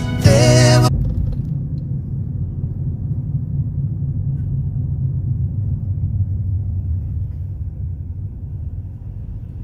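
Music cuts off about a second in, leaving a steady low rumble that slowly fades.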